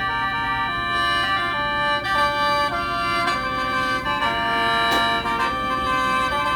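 Khaen, the Lao-Isan bamboo free-reed mouth organ, playing a stepping melody over steady held drone notes.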